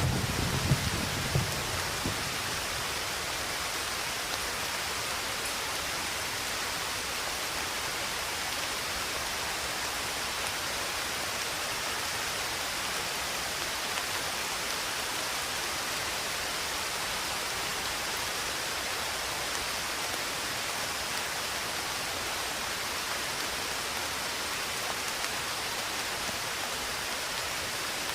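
Steady heavy rain hiss with no breaks. A low rumble dies away in the first couple of seconds.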